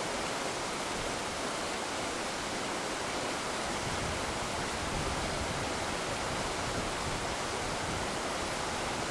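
A fast river rushing steadily over a stony bed, running high after a large flash flood. A low, uneven rumble joins beneath it about four seconds in.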